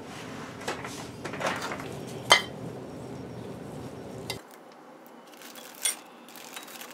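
Metal milling-machine parts clinking and knocking against an aluminium sheet pan as they are handled. A few separate clinks, the loudest a sharp ringing one about a third of the way in.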